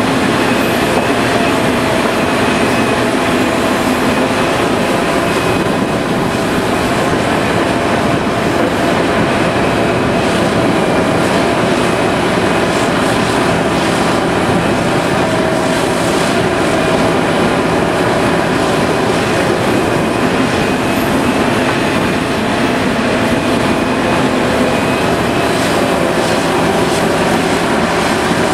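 Liebherr 974B hydraulic excavator at work: its large diesel engine runs steadily under load, with a whining tone over the engine noise.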